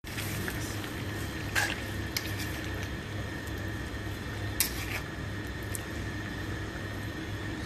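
A stew of chicken and vegetables in tomato sauce simmering and squelching in a wok as it is stirred, with a few sharp clicks of the utensils against the pan, the loudest about four and a half seconds in.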